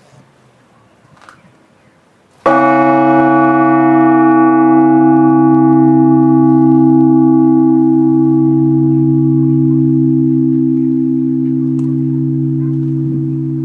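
A large Orthodox church bell struck once, about two and a half seconds in, its deep hum and many overtones ringing on and slowly dying away.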